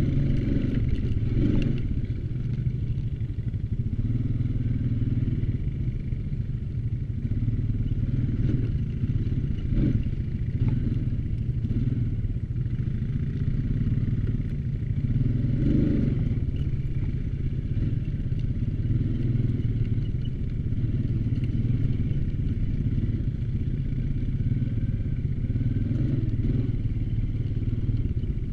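ATV engine running steadily at an even throttle, with a few short clattering knocks along the way.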